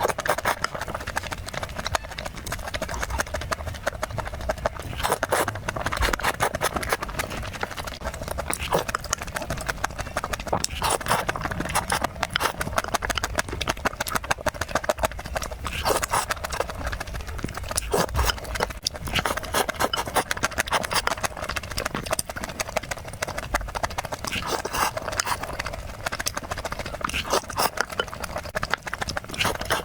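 Close-miked eating sounds: wet chewing and lip smacking, a dense, irregular run of mouth clicks that goes on throughout.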